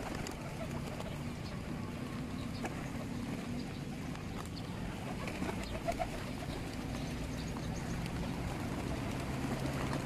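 Flock of feral pigeons cooing while feeding, with a brief wing flutter about halfway through.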